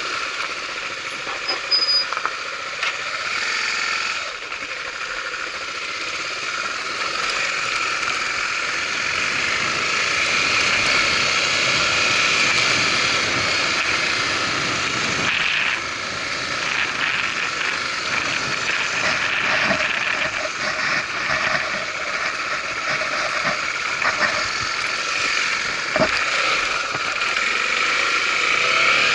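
Honda Tornado 250 motorcycle's single-cylinder four-stroke engine running, getting louder about eight seconds in with a brief dip around fifteen seconds.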